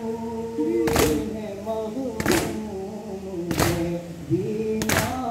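A group of men chanting a noha in unison, with sharp collective chest-beating slaps (matam) on an even beat about every 1.3 seconds, four strikes in all.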